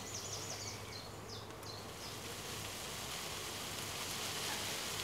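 A honeybee swarm buzzing as the branch it hangs from is shaken over a straw skep, with leaves rustling; the sound grows fuller about two seconds in. A few short bird chirps come in the first second or two.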